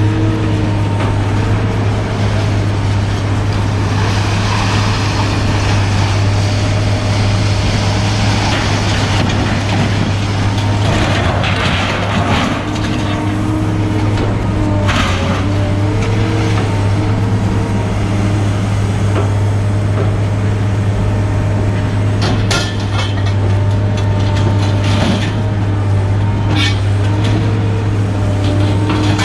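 A heavy engine running steadily with a constant low hum, while scrap metal is lifted off a truck bed, giving a few sharp metal clanks in the second half.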